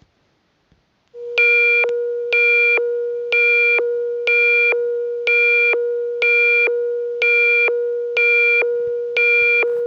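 Mock Emergency Alert System alert tone. About a second in, a steady low electronic tone starts. A brighter, higher beeping chord pulses over it about once a second, nine times, and the whole tone cuts off just before the end.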